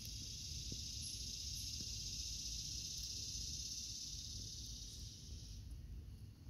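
Steady high-pitched insect drone, cutting off near the end, over a low rumble.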